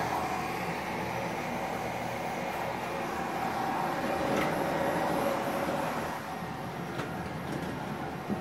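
Steady whirring of custom 3D printers running: cooling fans and stepper motors, with a faint motor tone that shifts in pitch in the middle.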